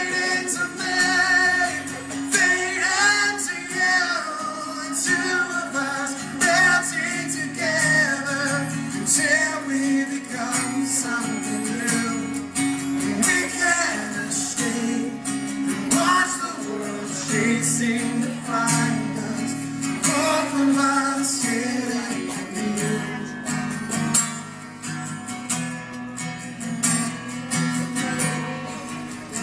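Live band music: a man singing a ballad over guitar accompaniment, with a steady low held note underneath.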